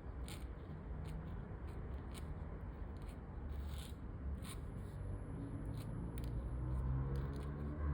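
Scratchy calligraphy pen nib scratching across paper in continuous writing strokes, with many short sharp scrapes.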